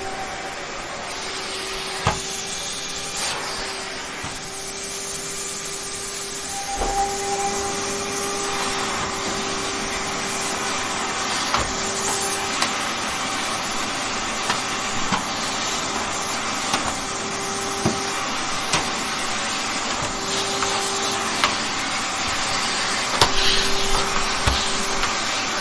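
Vacuum cleaner running steadily: a continuous motor whine and airflow hiss, with a second higher tone joining about seven seconds in. Scattered short clicks and knocks run through it, more of them near the end.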